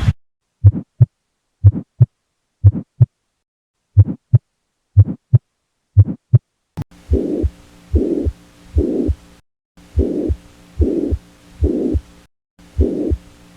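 Heart sounds heard through a stethoscope: clean paired 'lub-dub' beats about once a second over silence. About seven seconds in, a second recording starts in which every beat carries a rushing heart murmur, over a faint hum.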